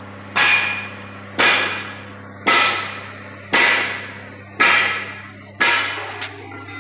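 Six evenly spaced metal-on-metal strikes, about one a second, each ringing out briefly, over a steady low hum.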